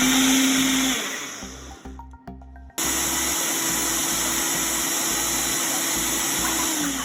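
Ninja blender motor running on its Ultra Blend setting, whipping heavy cream and coconut milk until thick. It runs with a steady whine for about a second, drops out briefly, then starts again near three seconds in at a higher, steady whine and winds down at the end.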